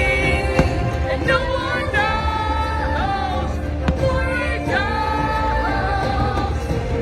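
Fireworks show soundtrack playing over loudspeakers: a sung melody with long held notes over orchestral backing, with a few sharp pops of fireworks bursting.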